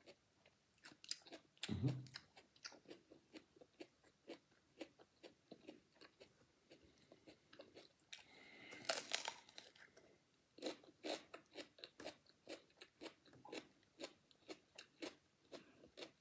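A person biting and chewing raw mini sweet peppers: a run of crisp, wet crunches, with a louder bite about two seconds in and another around nine seconds in.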